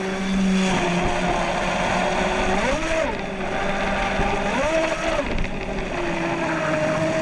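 Proboat Miss Geico 29 RC catamaran under way: its 1500kv brushless electric motor whines steadily over the rush of water along the hull. The whine rises and falls in pitch twice, about three and five seconds in.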